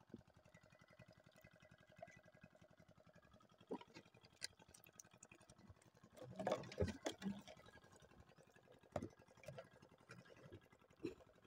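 Quiet handling of a mesh fish trap at the water's edge: a few scattered knocks and clicks, and a louder stretch of splashing and rustling about six seconds in as the trap is lifted from the river.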